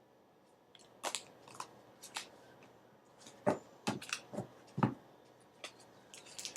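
Tarot cards being handled and laid down: an irregular string of light clicks and flicks with soft rustling, beginning about a second in.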